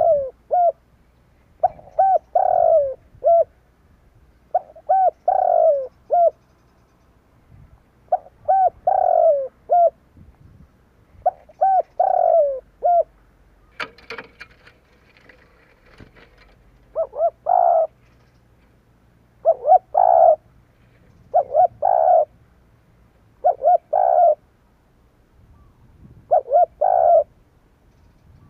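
Spotted dove (Streptopelia chinensis) cooing: a phrase of several coos, the last one falling, repeated about every three seconds, then in shorter phrases about every two seconds. A brief scratchy sound comes about halfway through.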